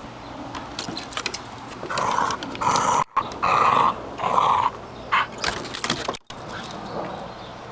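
A dog growling in four short, loud bursts about two to five seconds in.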